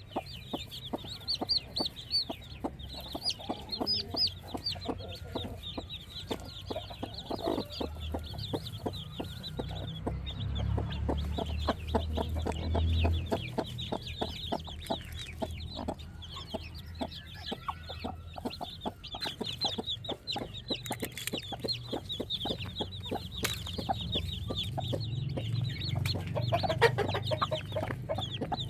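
Chickens clucking, with a steady stream of quick, high-pitched peeping calls.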